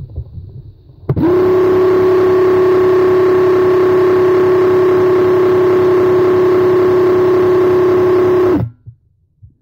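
Graco X-Force HD cordless handheld airless paint sprayer running while triggered and spraying paint. Its motor and pump give a loud, steady whine of constant pitch over a spray hiss, starting abruptly about a second in and cutting off sharply near the end, about seven seconds later.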